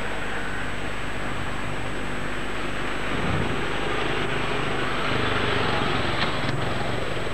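Steady street traffic noise: a continuous rumble of cars on a busy road, swelling briefly about three seconds in, with a few faint clicks near the end.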